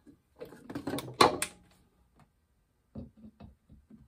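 Clatter and sharp knocks of wood and tools being handled, the loudest knock about a second in. Near the end come a few short bursts a second as a cordless drill-driver starts a screw into the plywood clamp holder.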